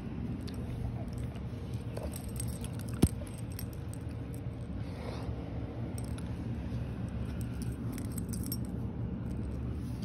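Close-up handling noise and movement of a Newfoundland dog, with faint light clicks and jingling throughout and one sharp click about three seconds in.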